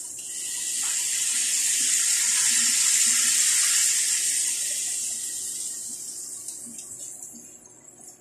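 Pork belly pieces sizzling in hot oil in a stainless steel pot as they are added, a steady hiss that swells over the first few seconds and then dies down near the end.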